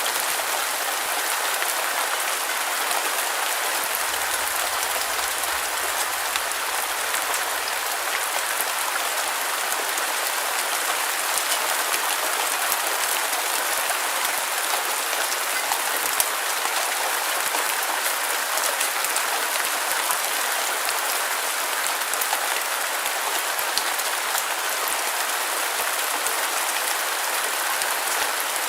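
Steady rain, an even dense hiss with fine crackling drops.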